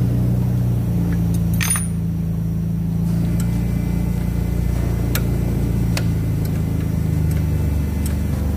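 Scattered sharp metallic clicks and clinks of hand tools on engine bolts as the alternator's lock bolts are loosened, the loudest about two seconds in, over a steady low hum.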